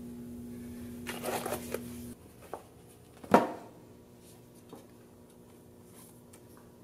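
Hardback books being handled: a short rustle, then one sharp thump about three seconds in as a book is set down on a shelf, followed by a few faint clicks. A steady low hum cuts off about two seconds in.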